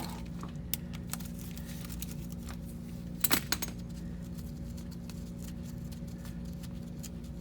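Hand tools working the sump-plate nuts and studs under a Porsche 911 engine, with a few sharp metallic clicks and clinks, the loudest cluster a little under halfway through, over a steady low hum.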